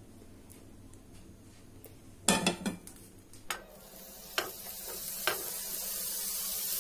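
Skewers of marinated chicken tikka set down in a hot oiled nonstick pan: a cluster of knocks about two and a half seconds in and a few single taps, then the chicken starting to sizzle in the oil, the sizzle growing louder toward the end.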